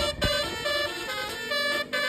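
Basuri telolet horn, a multi-tone vehicle horn, playing a tune in quick stepped notes, with a brief break near the end. A couple of low thumps sound right at the start.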